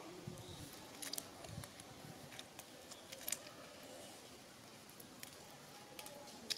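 Quiet outdoor background with scattered faint sharp clicks and ticks, and a couple of soft low thuds in the first two seconds.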